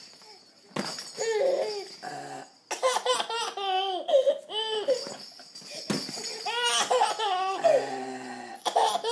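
A young child laughing hard in repeated high-pitched bursts and giggles.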